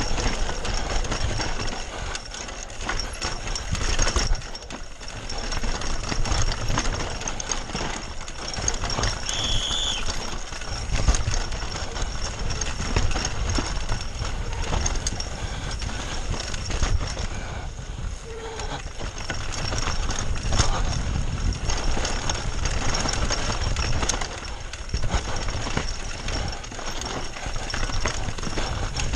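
Foes Hydro 2 e-bike descending a rough dirt downhill trail at speed. Tyres rumble over dirt and rocks, the bike rattles and clatters over bumps, and wind buffets the camera microphone.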